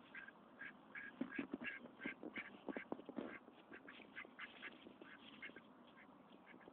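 Duck quacking in a quick run of short, soft calls, about three or four a second, with a few light taps in the first half.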